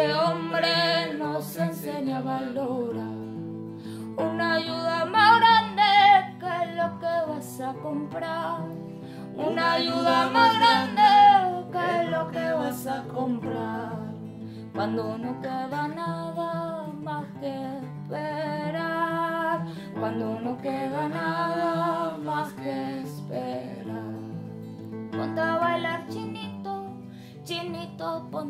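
Acoustic guitar accompanying a woman and a man singing a Spanish-language song together, in phrases of a few seconds each.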